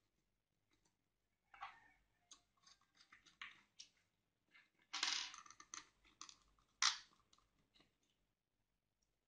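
Light clicks, taps and rustling as hands handle small screws, wires and a plastic lamp holder on a wooden board, with a louder clatter about five seconds in and a single sharp click near seven seconds.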